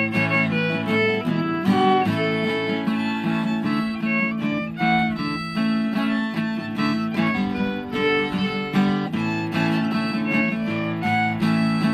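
String-band music: a fiddle playing the melody over strummed acoustic guitar, with a steady strummed rhythm.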